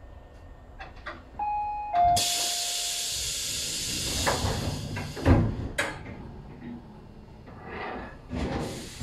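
Tobu 850-series electric train's pneumatic doors working: two short tones, one stepping down from the other, then a loud hiss of compressed air for about three seconds, ending in a heavy thud about five seconds in as the doors close.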